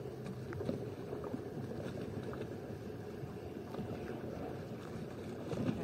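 Steady low rumble of wind and water around a boat at sea, with a few faint clicks.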